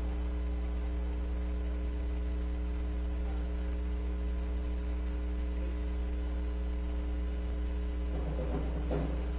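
Steady electrical hum from the stage's guitar amplifiers and PA: a low drone with several steady higher tones over it. A short burst of sound comes near the end.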